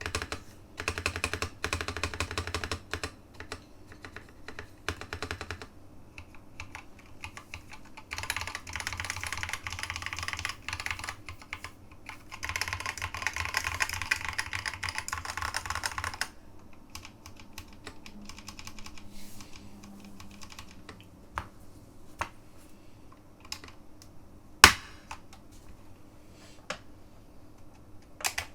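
Mechanical keyboard with new-old-stock Alps SKCC green switches being typed on: three spells of fast typing, then slow, scattered single keystrokes, one of them a much louder clack about two-thirds of the way through.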